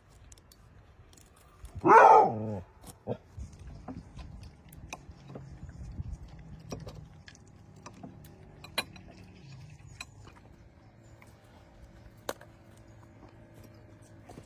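A single loud animal call about two seconds in, dropping in pitch, followed by scattered light clicks and knocks.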